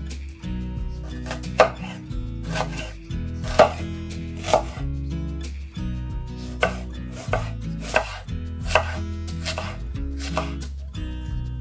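Knife chopping food, about ten separate cuts at roughly one a second, over soft background music.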